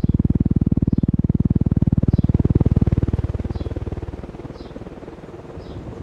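Draft from a 1988 TAT CFA2PC ceiling fan's spinning blades buffeting the microphone in rapid, even pulses. It is loud for the first three to four seconds, then eases off. A faint high chirp repeats about once a second.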